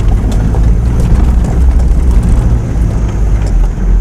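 A 4x4's engine and running gear heard from inside the cabin while it drives over a rough dirt track: a loud, steady low rumble with a few short knocks and rattles from the bumps.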